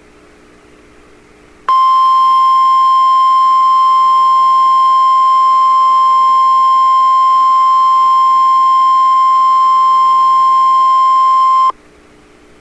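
NOAA Weather Radio's 1050 Hz warning alarm tone: one loud, steady, high beep lasting about ten seconds. It starts about two seconds in and cuts off suddenly, signalling that an urgent alert (here a tornado watch) is about to be read.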